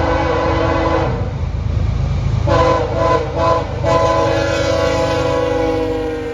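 Freight locomotive's multi-note air horn blowing for a crossing: a long blast ending about a second in, a run of short choppy blasts, then a long blast that sags slightly in pitch, over the low rumble of the passing train.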